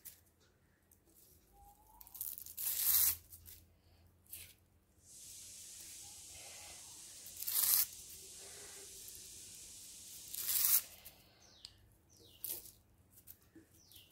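Dry-roasted curry leaves crackling and crunching as a hand crumbles them and drops them onto a puffed-rice and roasted-chana mix in a steel mesh strainer, with three louder crunches among softer rustles. A steady hiss runs under it from about five seconds in until about eleven.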